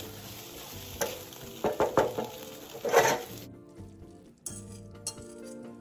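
Yellow noodles and bean sprouts sizzling in a hot wok while a spatula scrapes and strikes the pan several times. The sizzle cuts off suddenly about three and a half seconds in, leaving a few quieter clicks as chopsticks slide the noodles onto a plate, over soft background music.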